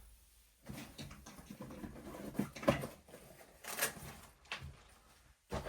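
Small parts and tools being handled on a workbench: irregular clicks, taps and rustling, with one sharper click about halfway through.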